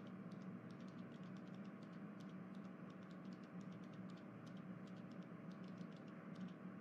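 Faint steady hum with a scatter of light, irregular clicks.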